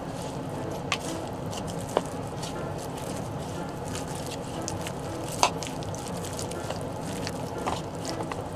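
Hand squishing and kneading a sticky mix of chopped chicken breast and potato coated in potato starch and rice flour in a bowl. A few sharp clicks stand out, about a second apart early on and again around the middle and near the end.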